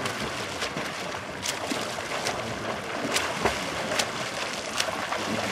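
Open-water swimmers doing front crawl, their arms slapping into lake water: a steady wash of churned water broken by sharp splashes a few times a second.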